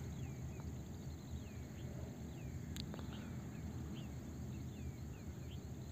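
Faint steady low rumble of a gondola cabin riding the ropeway, with a string of short, falling bird chirps and a single sharp click about three seconds in.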